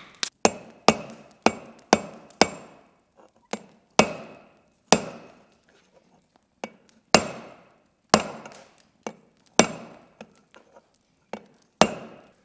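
A blacksmith's hand hammer striking red-hot iron on an anvil: a series of irregular, sharp blows, each with a short metallic ring, with a pause of about two seconds around the middle.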